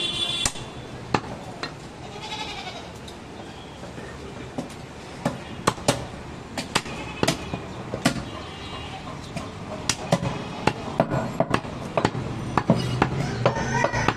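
A butcher's knife striking a wooden log chopping block while cutting goat meat: irregular sharp knocks. A goat bleats in the background near the start and again a couple of seconds in.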